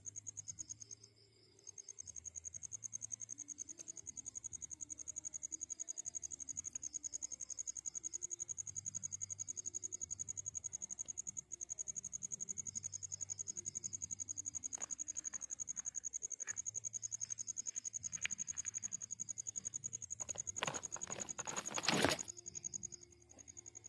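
Crickets chirping in a steady, rapid high-pitched trill, with a second, slightly lower cricket joining on and off. A brief cluster of rustling scrapes comes about 21 seconds in and is the loudest sound.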